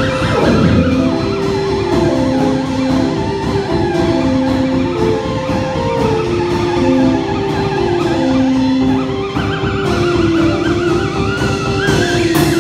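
Garage-rock band playing live: a drum kit keeps a steady beat under a keyboard melody of short held notes. A theremin's gliding tone sweeps steeply downward about half a second in and wavers high near the end.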